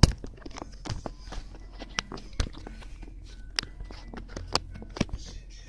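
Plastic phone case being fitted back onto a smartphone: a string of irregular sharp clicks and taps from handling, the loudest right at the start.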